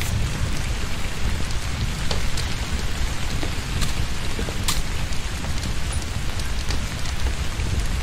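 Heavy, torrential rain falling steadily over a deep low rumble, with scattered sharp drip and splash clicks.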